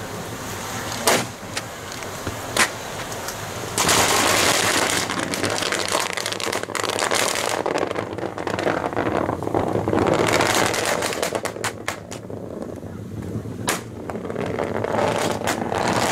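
A large fire of joss paper burns around a wooden wang boat with a rushing hiss, crackling and sharp pops. Two single loud pops come in the first three seconds, and the rush grows louder about four seconds in. A dense run of crackles follows near the end.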